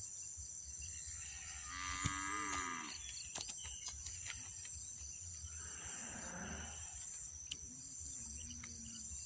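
Two drawn-out animal calls, the first about two seconds in and the second about six seconds in, with a few light clicks between them.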